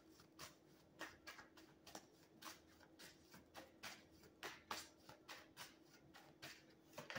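Faint tarot-card shuffling: a run of soft, uneven card flicks, about three a second, over a faint steady hum.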